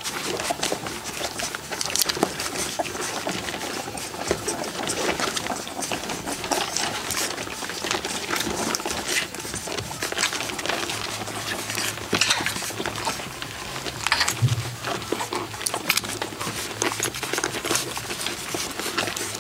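Four-week-old golden retriever puppies suckling at their mother: a continual patter of small wet smacks and clicks from many mouths working at once. A low steady hum comes in a little past halfway.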